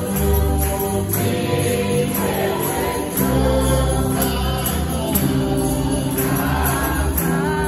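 A church congregation sings a Chichewa hymn together in chorus, clapping their hands in time.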